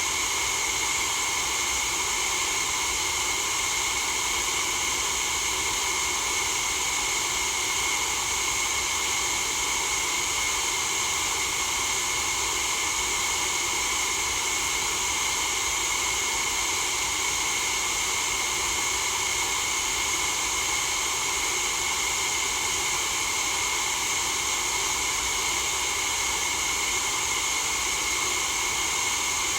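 Continuous white noise for sleep: a steady, even hiss that does not change.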